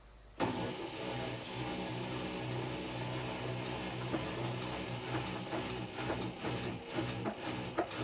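Samsung Eco Bubble front-loading washing machine starting up about half a second in, then running with a steady, slightly pulsing hum and scattered clicks mid-cycle.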